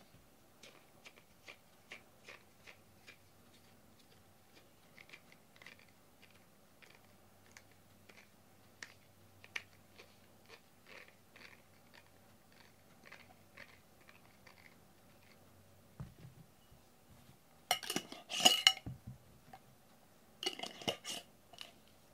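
Cardboard box crackling and scratching under a cat standing in it: scattered light clicks, then two louder bursts of scraping and crackling about two thirds of the way through and near the end.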